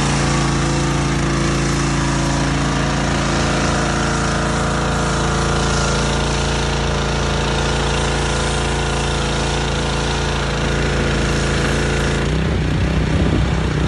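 Petrol-engine pressure washer running steadily and spraying, a constant engine tone under a loud hiss of water jet. The spray hiss thins about twelve seconds in while the engine keeps running.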